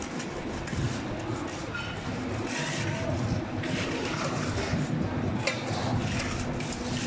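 Voices talking over a steady low machine-like hum, with scattered short knocks.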